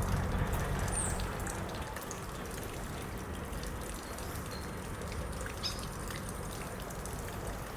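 Steady outdoor hiss with a few faint, short bird chirps scattered through it.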